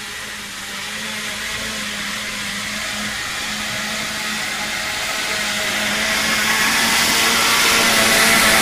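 Suzuki Samurai's 1.6-litre G16A four-cylinder engine with a Magnaflow exhaust, running under load as the truck pushes through deep mud, a steady drone growing louder as it comes closer.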